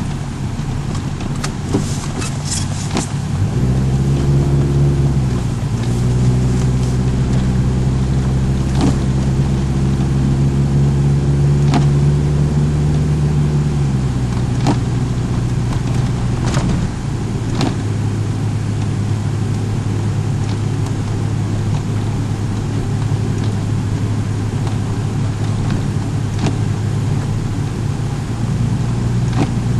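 Car engine running while driving, heard from inside the car: it picks up about four seconds in, holds a steady pitch, then eases back about halfway through and runs on lower and steady. Scattered sharp clicks and knocks sound over it.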